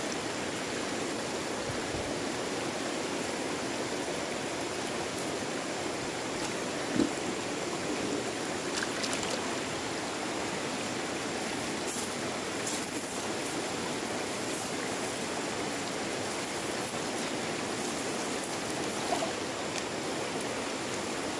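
Swift, shallow river water rushing steadily over rocks, with a few brief clicks along the way.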